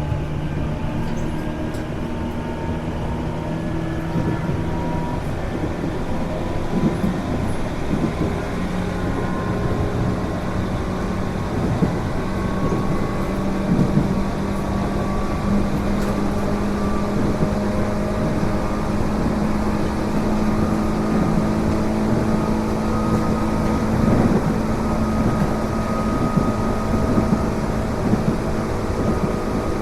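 Tobu 8000 series resistor-control electric train heard from inside the car while running: a steady rumble with motor hum and whine, the tones climbing gently over the first several seconds and then holding, and a few wheel clicks over rail joints. This car makes a constant abnormal noise, which the recordist suspects comes from a faulty switchboard.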